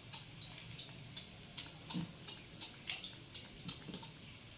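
Hot oil crackling faintly in a frying pan of stir-fried noodles and sausage, short sharp pops coming irregularly, two or three a second.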